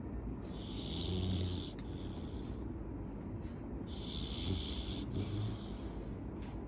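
Labrador dog snoring in its sleep: two long, rasping snoring breaths about three and a half seconds apart, each lasting about two seconds.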